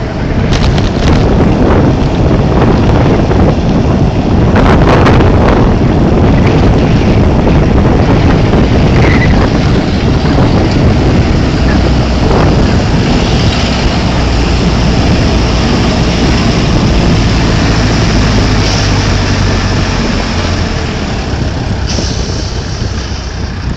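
Strong blizzard wind buffeting the microphone, loud and continuous, over the noise of a moving vehicle. A low engine hum stands out more in the second half.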